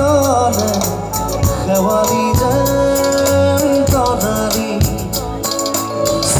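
Live band playing with a singer: a singing voice over guitars and a drum kit, with held chords and regular drum hits.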